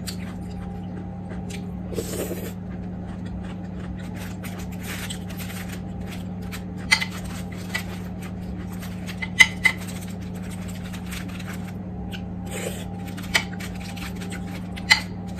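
Metal spoon clinking and scraping against dishes and aluminium foil while eating, a handful of sharp clinks spread through, over a steady low hum.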